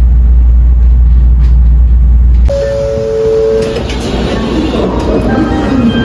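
Steady low rumble of an N700-series Shinkansen heard from inside the car while it runs. It cuts off abruptly about two and a half seconds in, giving way to a two-note electronic chime lasting about a second, then lighter station and train noise as passengers step off onto the platform.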